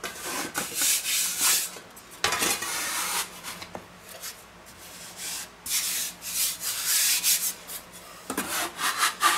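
A metal pizza peel scraping and rubbing across a floured wooden board as it is worked under a topped pizza, in a series of short rasping scrapes.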